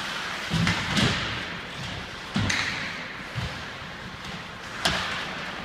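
Ice hockey play in a rink: scattered knocks and thuds of sticks, puck and boards, about five over a few seconds, the sharpest a crack near the end.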